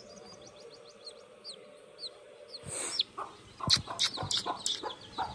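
A chick peeping in short, high, falling chirps, several a second, which die away about halfway through. In the second half comes a run of sharp knocks and scuffs, the loudest sounds here.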